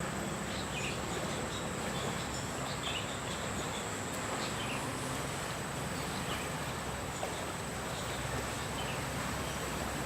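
Insects trilling in one continuous high-pitched tone over a steady rushing background, with a few faint short chirps scattered through it.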